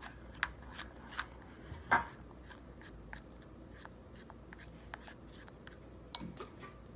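Sticky, chunky slime being mixed by hand in a bowl: irregular small clicks and wet pops, a couple a second, with one louder pop about two seconds in. The slime is not coming together.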